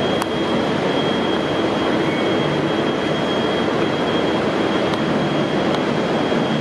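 V/Line N-class diesel-electric locomotive running steadily as it hauls its carriage set out of the platform, a dense, constant engine and rail noise with a thin, steady high whine over it.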